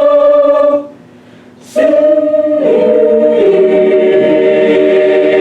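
Chamber choir singing a cappella in parts. A held chord stops about a second in, and after a short breath a new chord enters suddenly on "sing", shifts harmony and is held: a sforzando-crescendo warm-up exercise.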